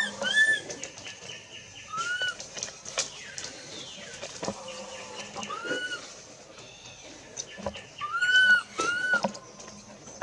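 Infant long-tailed macaque crying: a series of short, high-pitched arched cries, rising and falling in pitch, with pairs of cries close together at the start and again near the end.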